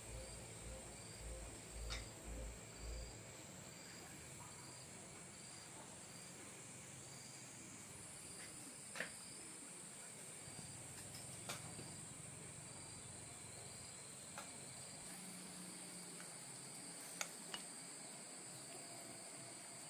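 Faint chorus of insects, crickets by their sound: a steady high-pitched trill with a shorter chirp repeating about every half second through the first half. A few soft low thumps come in the first three seconds, and scattered light clicks follow.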